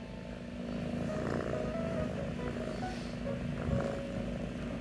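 A kitten purring steadily while it is stroked, with a low steady hum underneath.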